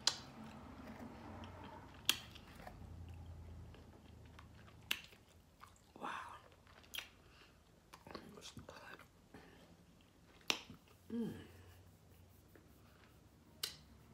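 A person chewing barbecue ribs close to the microphone: soft wet chewing broken by sharp lip smacks every couple of seconds. A brief hummed "mm" comes about eleven seconds in.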